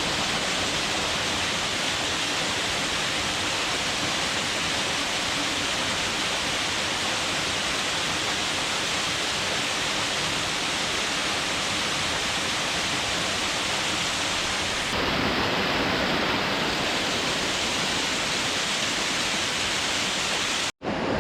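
Waterfall and the streams running off it: a steady, even rush of falling water. It cuts out for a moment just before the end.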